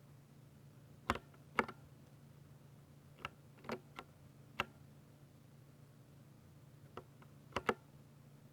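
Keystrokes on a 60% mechanical keyboard with silver linear switches, typed slowly and unevenly: a few sharp clacks in three short groups, about a second in, around three to four and a half seconds in, and near the end. A faint steady low hum sits under them.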